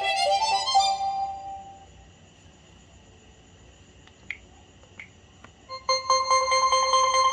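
LG Classic Flip ringtones: one melody fades out over the first couple of seconds, a few faint clicks follow, and about six seconds in the next ringtone starts with a sustained electronic tone.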